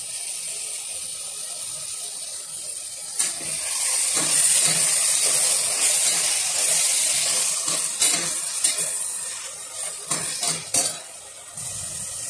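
Tomatoes and green chillies sizzling in hot oil in an aluminium pressure cooker pot while being stirred; the sizzle swells about four seconds in, with a few sharp clinks against the pot.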